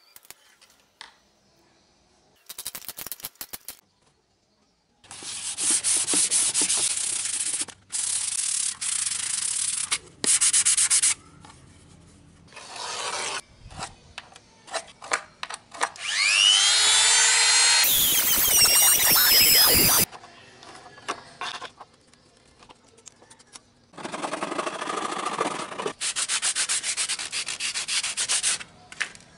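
Sandpaper rubbed by hand over cured fiberglass, in several spells of quick strokes, with a short run of clicks a few seconds in. About two-thirds of the way through there is a louder rasping stretch with a whine that curves in pitch, the loudest sound here.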